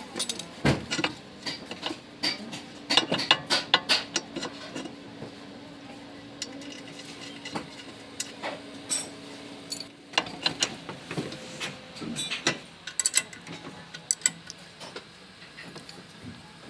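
Metal hand tools clicking and clinking against car parts during wheel-bearing work, with a steady low hum lasting several seconds in the middle.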